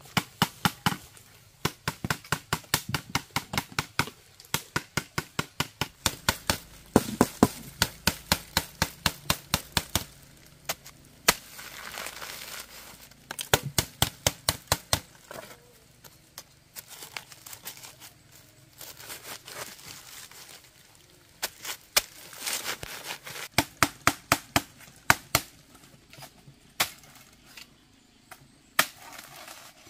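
Rapid chopping with a blade, in runs of about five sharp strokes a second broken by short pauses, with rustling between some runs.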